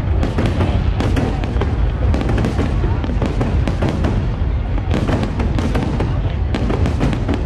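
High-altitude aerial firework shells bursting in quick succession: dense, overlapping bangs and crackle, several a second, over a steady low rumble.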